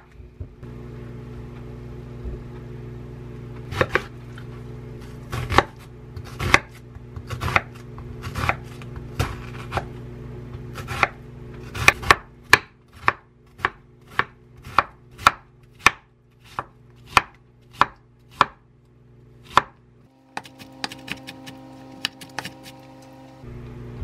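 Chef's knife cutting an onion on a wooden cutting board: a few irregular knocks as it is sliced, then regular chopping strokes at about two a second as it is finely diced, with a steady low hum underneath.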